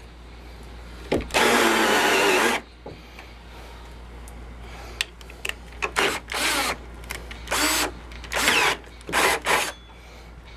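Power drill turning a hole saw into the face of a wooden door to bore the knob hole: one run of about a second and a half, then a string of short stop-start bursts. The drill is being eased along so the centre pilot bit breaks through the back side before the saw does, to avoid chip-out on the other face.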